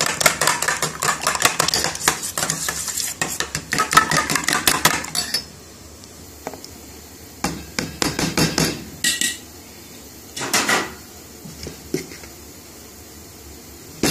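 Eggs beaten with a metal utensil in a bowl: rapid clattering for about five seconds, then a few scattered scrapes and clinks of the utensil against the bowl.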